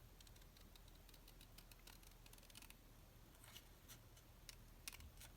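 Faint, irregular snips of small craft scissors cutting paper.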